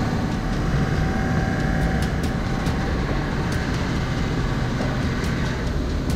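Large circular saw cutting through a forged nickel-alloy bar under coolant spray: a steady, loud heavy machine drone with scattered sharp ticks.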